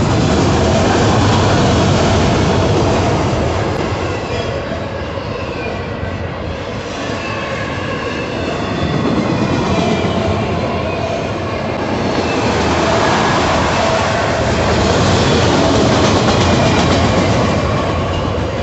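Freight train of enclosed autorack cars rolling past: a steady rumble and clatter of steel wheels on rail, swelling and easing in waves, with thin high squealing tones from the wheels running through it.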